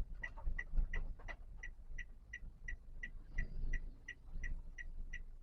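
A Toyota Calya's turn-signal indicator ticking steadily, about three clicks a second, over a low rumble in the car's cabin.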